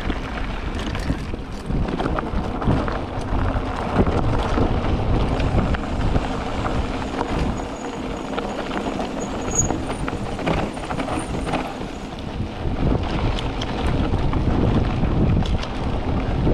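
Mountain bike descending fast on a loose dirt trail: wind rushing over the microphone and tyres running over dirt and gravel, with frequent clatters and knocks as the bike bounces over bumps.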